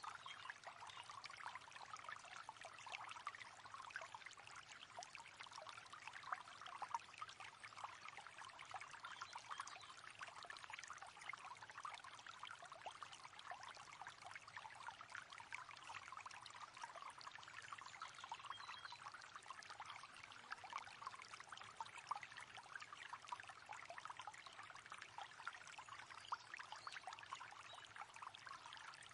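Quiet, steady babbling of a small river, its water running over stones in a constant stream of tiny splashes and trickles.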